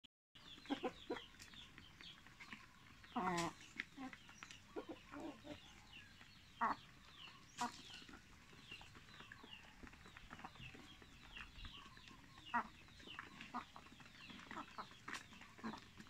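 A flock of Barred Plymouth Rock hens clucking and calling as they crowd in to be fed, with many short, soft falling calls throughout. A louder squawk comes about three seconds in, and a few sharp short calls follow later.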